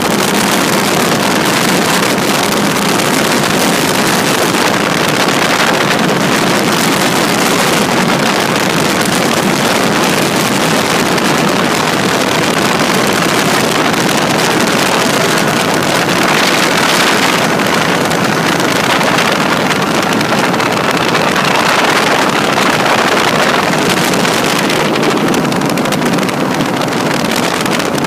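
Drifter open-cockpit ultralight in flight: a steady, loud engine drone mixed with wind rushing over the microphone.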